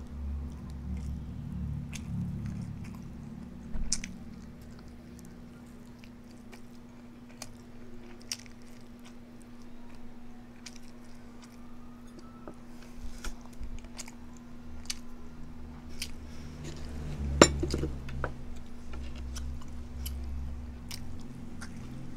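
A person chewing and biting food close to the microphone: soft crunches and wet mouth clicks, with one sharper click about 17 seconds in. A steady low hum runs underneath.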